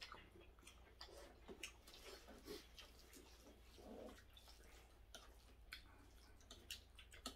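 Faint eating sounds at the table: quiet chewing with scattered small clicks of chopsticks against dishes.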